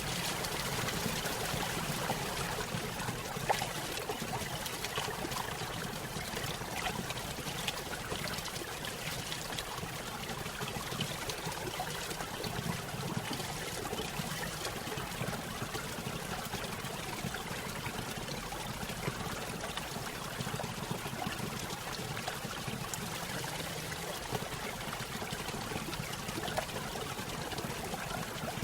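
Small stream spilling over a little waterfall: a steady trickling and splashing of water with a low rushing undertone.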